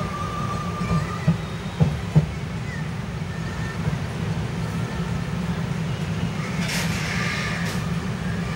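Steady rumble of an LHB passenger coach running on the rails, with three sharp knocks over the first two seconds and a brief hissing rush late on.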